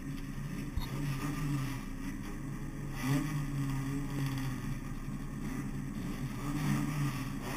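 Renault Clio Sport race car's four-cylinder engine idling, heard from inside the cabin. The revs rise slightly about three seconds in and again near the end.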